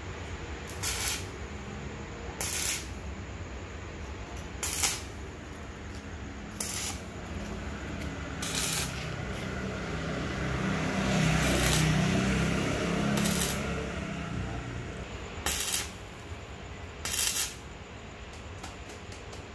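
Stick-welding arc on steel motorcycle sprockets and chain, crackling and hissing and loudest in the middle, with short sharp cracks every two seconds or so.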